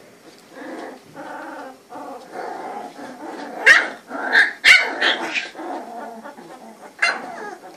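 A litter of three-week-old Cane Corso puppies whining and yelping in a run of short pitched cries. A few louder, sharper yelps come around the middle, and one more near the end.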